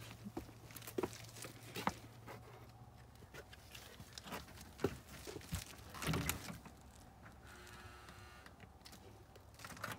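Faint footsteps and knocks as someone walks up to a front door, then a short creak around eight seconds in as the glass storm door is opened.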